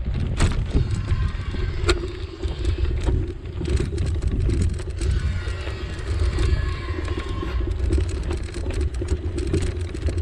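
Bicycle being ridden: a steady low rumble of road and wind noise on the microphone, with scattered clicks and rattles.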